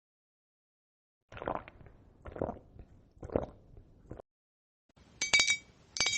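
Three short munching eating sounds about a second apart, then two quick bright glassy clinks near the end.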